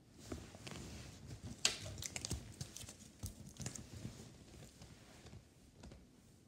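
Faint rustling with a few light clicks and knocks, the sharpest about one and a half seconds in, dying away toward the end.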